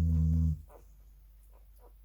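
Labrador retriever mother snoring: one low, pitched snore about half a second long at the start, then faint small clicks.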